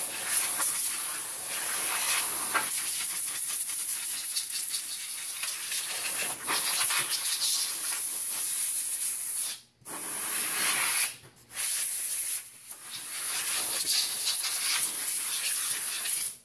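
Compressed-air blowgun blowing the wash water and cleaner off a freshly washed drum-brake backing plate to dry it. A loud, steady hiss, broken by a few short pauses where the trigger is let off, and cut off sharply at the end.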